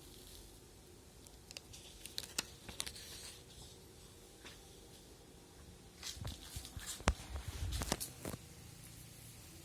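Sheets of animation paper being handled at a paper-punching machine: rustling with sharp clicks and knocks in two bursts, around two seconds in and again from about six to eight seconds in, the loudest a sharp click about seven seconds in.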